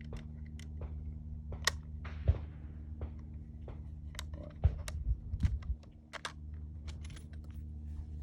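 Irregular sharp clicks and light knocks, a dozen or more, scattered over a steady low hum.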